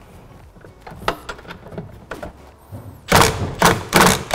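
A socket clicks onto a bolt. Then, about three seconds in, a cordless impact wrench starts hammering in short rapid bursts, about two or three a second, as it snugs an M12 chassis bolt in its torque-limited tyre mode.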